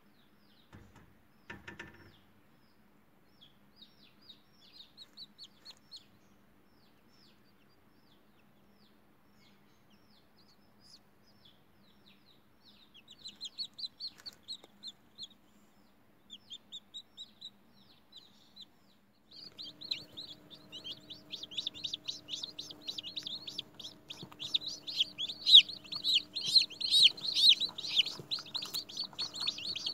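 Hatching chicken chicks peeping in high, short cheeps: scattered single peeps at first, then from about twenty seconds in many chicks peeping rapidly at once, over a steady low hum.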